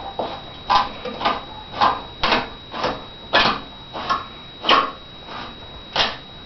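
Repeated short scraping and rubbing strokes, about two a second and unevenly spaced, over a faint steady high whine.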